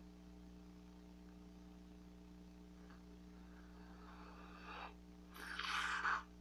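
A bubble gum bubble being blown with soft breathy air, then popping a little over five seconds in, followed by a louder breathy rush that cuts off sharply. A low steady electrical hum lies underneath.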